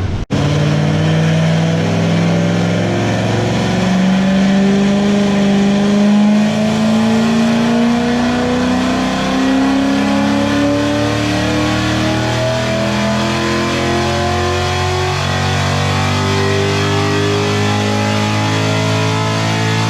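Cammed Corvette V8, fitted with a Texas Speed 224R camshaft, making a full-throttle pull on a chassis dyno, its note climbing steadily in pitch as the revs rise.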